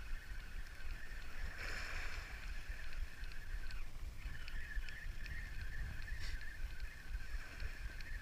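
Spinning reel cranked steadily to reel in a hooked fish, its gears whirring, with a short pause about four seconds in. Wind rumbles on the microphone underneath.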